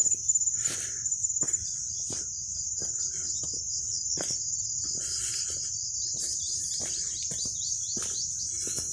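Steady high-pitched insect chorus of crickets or cicadas, with irregular scuffs and knocks that are busiest in the first second and a half.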